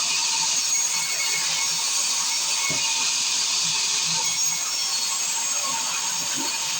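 Sawmill circular saw running steadily, a constant high-pitched hiss and whine of the blade working through pine.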